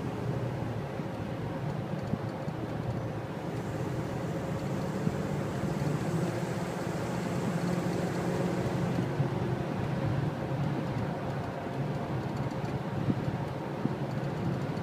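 Steady road noise inside a car cabin cruising on a freeway: tyre roar and engine hum with a low drone.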